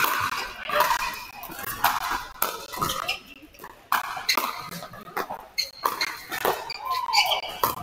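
Pickleball paddles striking a hard plastic ball in a soft dinking exchange at the net: a string of sharp pops, about one or two a second, irregularly spaced.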